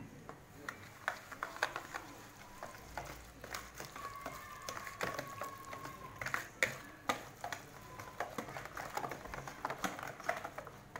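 Thick semolina cake batter being stirred by hand in a bowl, the utensil scraping and clicking irregularly against the bowl's sides.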